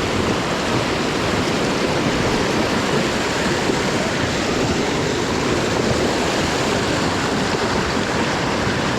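Water rushing steadily down a small stream waterfall, a continuous even roar of falling water.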